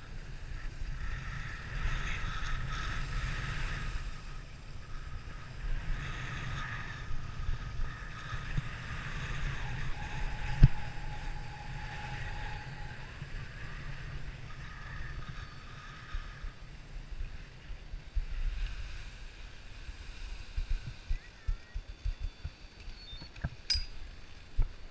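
Skis sliding and scraping over packed snow, with wind buffeting the microphone as a low rumble. There is a sharp click near the end.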